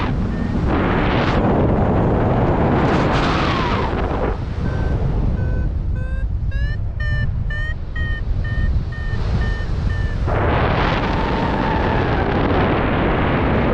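Wind buffeting the microphone with a steady rumble and whooshing gusts, as a paraglider flies. From about four seconds in, a flight variometer beeps in short repeated tones that rise in pitch and quicken before holding steady, signalling the glider climbing in lift.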